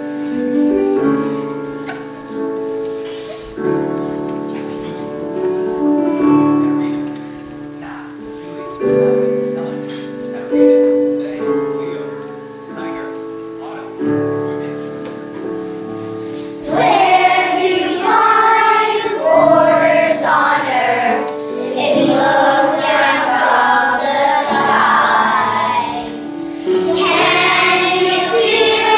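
Piano playing a slow run of chords, then a little past halfway a group of children's voices comes in singing the song together over the piano.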